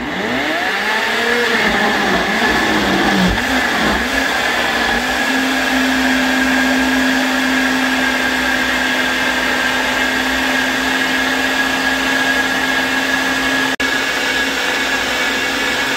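Bullet-style personal blender running at full speed, chopping raw beets with eggs, oil and sugar into a batter. For the first few seconds its pitch wavers up and down as the chunks catch on the blade and break up; then it settles into a steady whine as the mix turns smooth. It drops out for an instant near the end.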